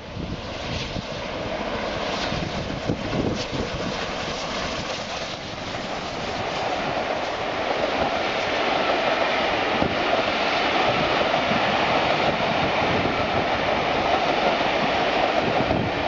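Steam train hauled by an LMS Stanier Class 5 4-6-0 'Black Five' locomotive passing close by. The locomotive comes by first, then the coaches roll past with steady wheel-on-rail noise that grows louder about halfway through.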